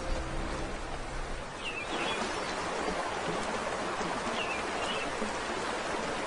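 Steady rush of running river water with a few short bird chirps. Low sustained music tones fade out about a second and a half in.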